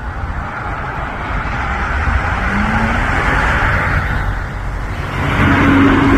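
Road traffic: motor vehicles passing, a low rumble with a rush of engine and tyre noise that swells twice.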